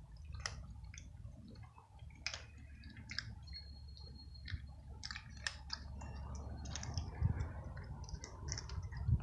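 A cat crunching dry kibble: irregular short crackly clicks as it bites and chews the pellets, coming thicker in the second half, over a low steady rumble.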